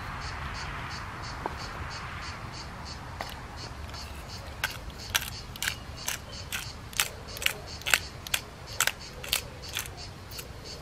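A hand pepper mill is twisted over a plate, grinding in short crunchy strokes about twice a second from about four seconds in. Insects chirp in a steady high pulse behind it.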